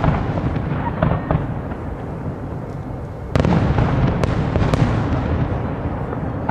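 Fireworks display: aerial shells bursting with sharp bangs over a continuous rumble and crackle, with a burst of louder reports about three seconds in and a few more bangs after it.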